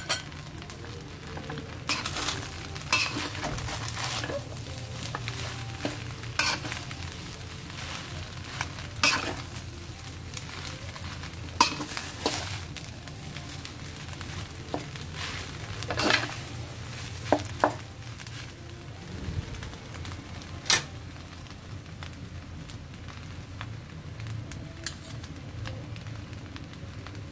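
Fried rice sizzling in a stainless steel pan while it is stirred and turned with a metal spatula, with irregular sharp clinks and scrapes of metal against the pan over a steady frying hiss.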